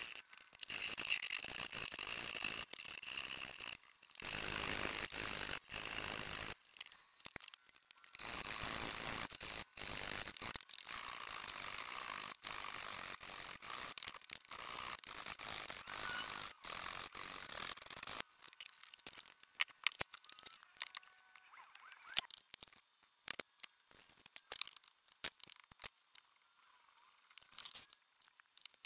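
A metal hand file and a thin trimming blade are rasped across the end grain of dovetail pins to bring them flush, in repeated scraping strokes a second or two long. About 18 seconds in, the strokes stop, leaving a few scattered light taps and clicks.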